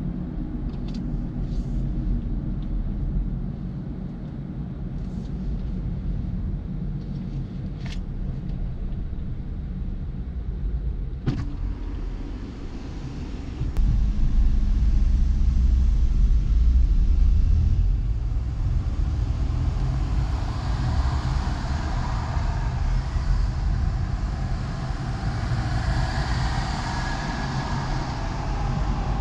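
Car driving on city streets: a steady low rumble of engine and road noise that gets louder about fourteen seconds in, with more tyre and traffic hiss in the second half.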